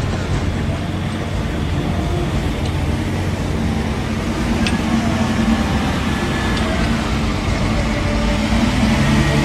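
Heavy diesel engine of a wheel loader running with a steady low drone.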